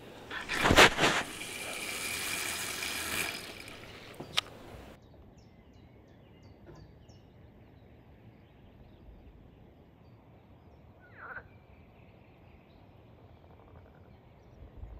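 A loud thump about half a second in, then a few seconds of rustling noise and a sharp click. The sound then drops to quiet outdoor ambience with small birds chirping, and one louder bird call comes about eleven seconds in.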